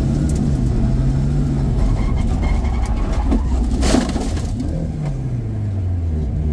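Rally car's engine heard from inside the cabin, running hard. A sharp crack comes about four seconds in. The engine revs then drop as the car slides round in a spin, kicking up dust.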